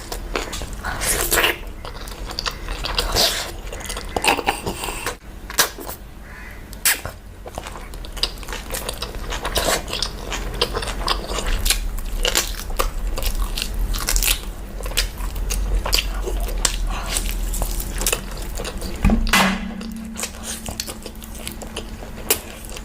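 A person chewing and biting food, with many short, irregular clicks throughout. A steady low hum comes in near the end.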